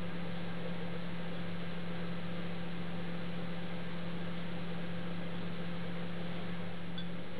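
Steady electrical hum with a faint even hiss: the recording's own background noise, with no other sound standing out.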